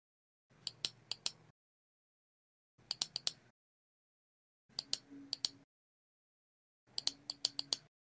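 Faint clusters of sharp clicks, three to five at a time, repeating about every two seconds.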